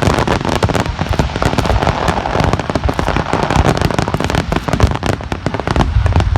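Aerial fireworks going off in a rapid, continuous barrage: shell bursts following one another with no gaps, with a dense crackling a couple of seconds in.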